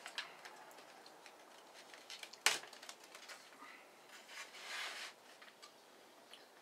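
Hands handling a stack of plastic mason bee nesting trays: light clicks and taps, one sharp click about two and a half seconds in, and a brief scraping rustle near five seconds.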